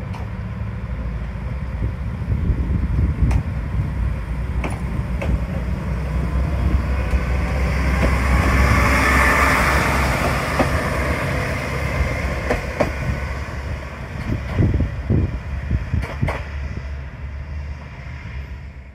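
Diesel railcar running past with a steady low engine rumble and the hiss of wheels on rail. The hiss swells about midway as the car passes closest, with a few sharp clicks along the way.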